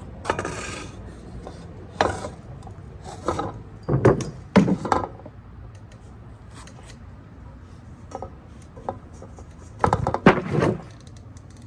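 Stunt scooter riding over a plywood pallet ramp: wheels rolling and scraping, with clattering knocks of wheels and deck striking the wood. The loudest knocks come in a group about four to five seconds in and again near the end, as the scooter jumps and lands.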